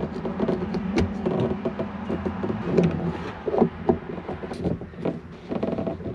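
Close-up handling noise of a plastic fuel filter bowl being fitted by hand onto a jet ski's fuel filter: irregular clicks, knocks and rubbing of plastic.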